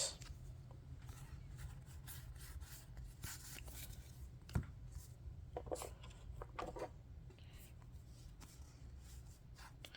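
Faint rubbing and light ticking of trading cards being handled and slid against one another, with one sharper tap about four and a half seconds in.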